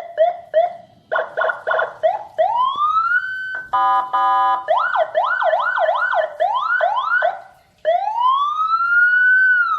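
Senken CJB100BD electronic siren sounding through a Senken YD100i speaker, stepping through its tones. It gives a few short rising chirps, a fast chopped warble, two rising whoops, then a brief buzzing horn blast about four seconds in. After that comes a fast yelp, and near the end a slow wail that rises and falls.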